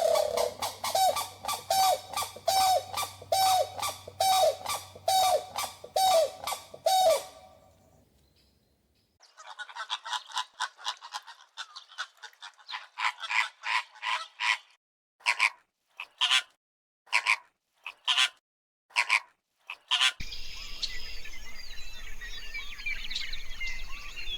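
Birds calling: a run of loud, repeated honking calls, about two a second, for the first seven seconds. After a short pause comes a stretch of rapid chattering calls, then several separate short bursts, and near the end a steady background of birdsong.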